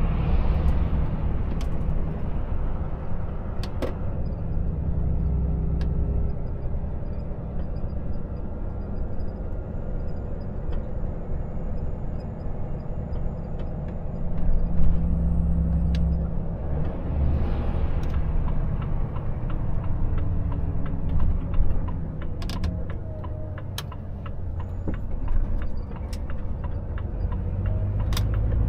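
Volvo FH 460 truck's 13-litre straight-six diesel engine running, with tyre and road noise, heard from inside the cab as the truck slows. A few sharp clicks come through at scattered moments.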